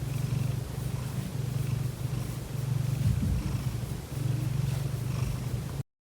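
Domestic cat snoring in its sleep: a low rumble that swells and fades with each breath, about every second and a half, cutting off abruptly near the end.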